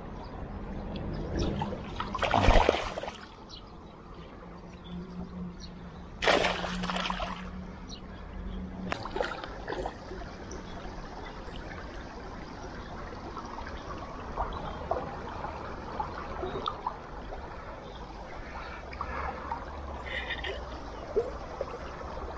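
Water splashing and trickling, with two loud splashes about two and six seconds in, then a steady light trickle with small clicks.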